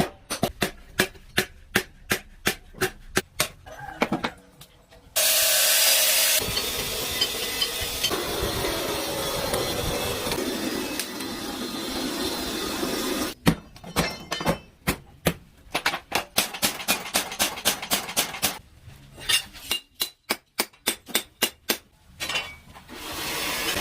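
Blacksmith's hammer striking steel on an anvil in quick runs of blows, two or three a second, broken by a long stretch of loud steady noise from a power tool working the blade, then more hammer blows.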